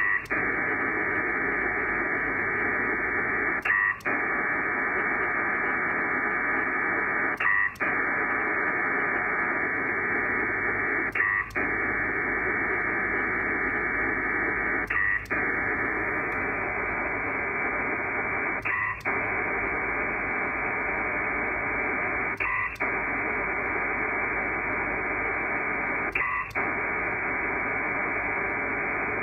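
Pactor-III digital radio data signal sent by an Icom IC-7300: a steady, hiss-like rush, broken by a short pause about every four seconds, where the link turns round for the receiving station's acknowledgement.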